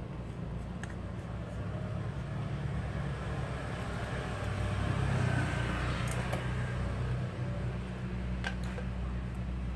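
Electric motor of an Imperial high-pressure washer running with a steady low hum that swells slightly midway, with a few light clicks from hands working on the machine.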